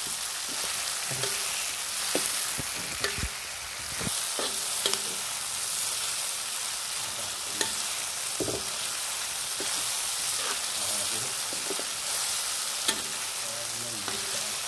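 Chopped shallots, garlic and red chilies sizzling in oil in a wok, a steel spatula stirring and scraping them, with scattered clicks and knocks of the spatula on the pan. This is the spice base being fried, kept half cooked.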